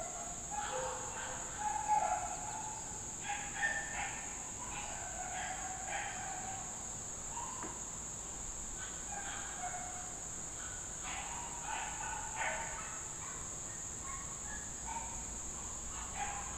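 Outdoor ambience: a steady high-pitched insect chorus with scattered short bird calls.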